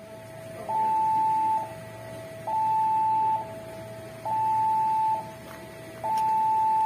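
Railway level-crossing warning alarm sounding an electronic two-tone signal: a higher and a lower tone alternate steadily, each held just under a second, with the higher tone louder. It is the crossing's warning to road traffic that a train is coming.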